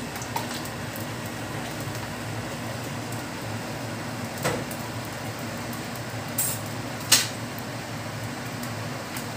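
Gas stove burner running under a pan of cooking oil as it heats: a steady low rush, with a few sharp ticks scattered through it.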